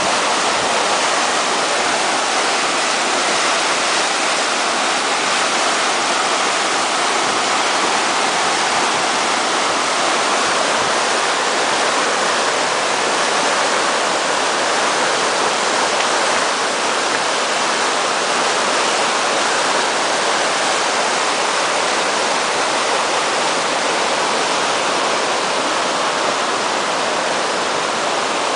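River water pouring over a low boulder weir and churning into white water below it: a steady, unbroken rush.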